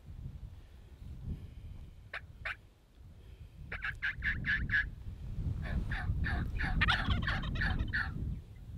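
Wild turkey tom gobbling: two runs of fast rattling notes, the first about four seconds in and a longer one from about six to eight seconds in.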